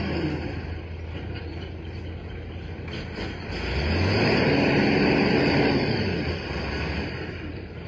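Dump truck's diesel engine running, revving up for about two seconds about four seconds in, then easing back while the tipper bed is raised.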